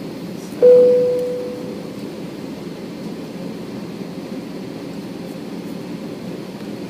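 A single clear chime from the airliner's cabin chime system rings once about half a second in and fades over about a second. It sounds over the steady hum of an Airbus A321 cabin with the engines at taxi power.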